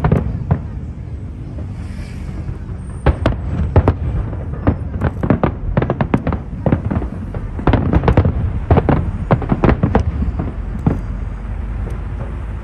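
Aerial fireworks shells bursting in rapid succession, dozens of sharp bangs with a steady low rumble underneath. The bangs thin out briefly around the second second, then come thick and fast until near the end.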